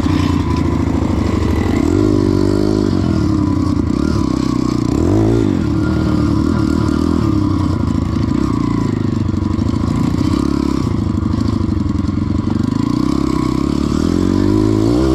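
Small four-stroke pit bike engine heard from the rider's seat while riding, the revs rising and falling again and again as the throttle is opened and closed.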